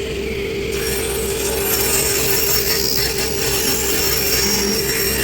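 Table saw running, then ripping along the length of a board for about four and a half seconds: the cutting noise starts about a second in and stops just after the end, over the motor's steady hum.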